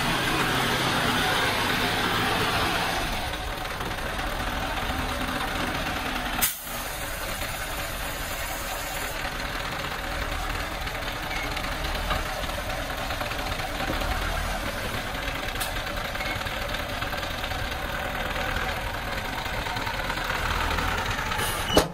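Small Hoa Mai dump truck's diesel engine running while its hydraulic hoist tips the bed and dumps a load of soil. The engine is louder for the first three seconds, then settles to a steady run, with a sharp click about six and a half seconds in.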